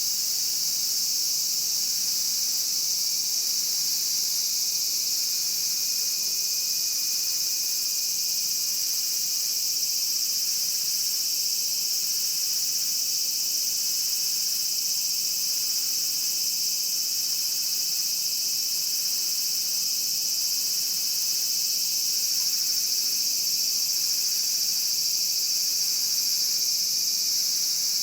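Chorus of Japanese cicadas buzzing steadily, a dense high-pitched drone that holds without a break.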